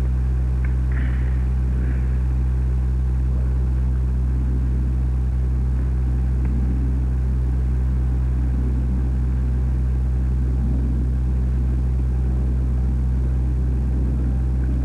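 Steady low electrical hum, a stack of even tones that never changes, with a faint rumbling noise beneath it: the hum of an old film soundtrack transfer.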